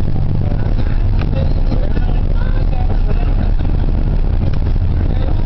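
Bus engine running steadily with road noise, heard from inside the passenger cabin: a constant low hum.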